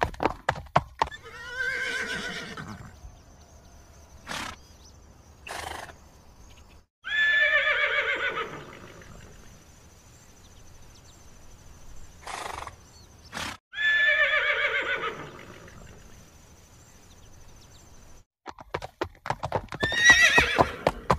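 Horses neighing four times, each a loud whinny that falls in pitch. Fast, even clip-clop of galloping hooves runs at the start and comes back near the end. A few brief short noises fall between the neighs.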